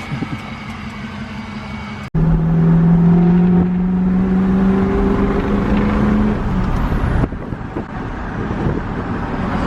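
Ford 6.0 Powerstroke V8 diesel running through a 4-inch straight pipe. About two seconds in it jumps louder to a steady drone that rises slightly in pitch, then drops back about seven seconds in.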